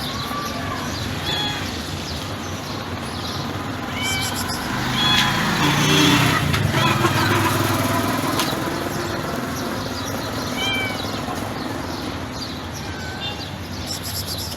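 A domestic cat giving short, soft meows every few seconds, each a brief call that rises and falls. A louder low rumble swells and fades in the middle.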